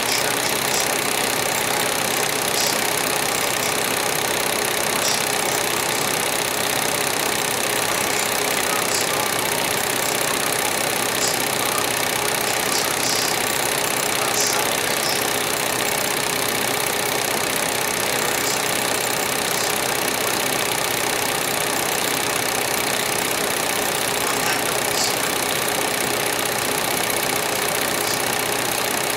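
A machine running steadily with an unchanging hum and faint clatter, with a few faint clicks scattered through.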